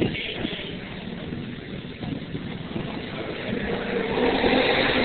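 An engine running with a steady hum, getting louder and rising in pitch a little about three and a half seconds in.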